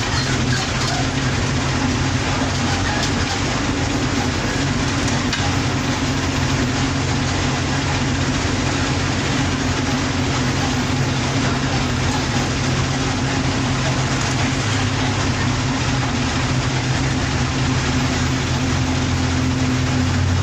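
Bus engine running steadily while under way, with a constant low hum over the noise of the tyres on the road.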